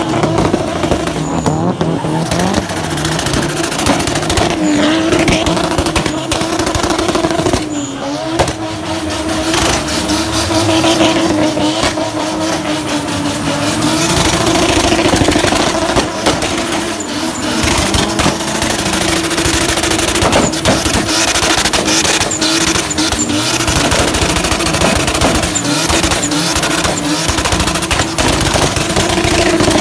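Drift car's engine held at high revs while its rear tyres squeal through long slides. The revs dip briefly about a quarter of the way in, then climb back up.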